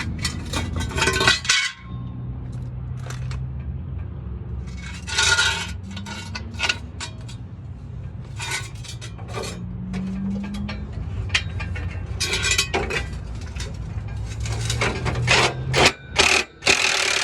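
Metal tools and parts being handled: repeated clinks and a few longer scrapes over a steady low hum, busiest near the end.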